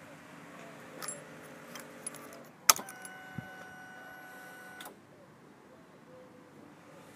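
A motorcycle ignition key is handled with small clicks, then turned on with a sharp click. A steady electric whine follows for about two seconds and then cuts off: the KTM Duke 390's fuel pump priming as the dashboard powers up.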